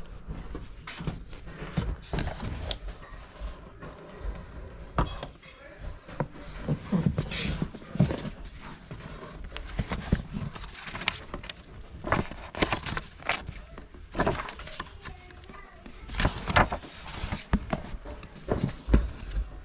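Old hardcover books being pulled from a wooden bookshelf and handled: irregular knocks, scrapes and thuds, with voices murmuring in the background.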